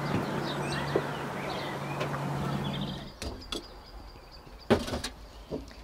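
Birds chirping over a steady low hum. Then, about three seconds in, the background drops away and a few sharp knocks and clunks follow as a bottle is lifted out of a wicker basket.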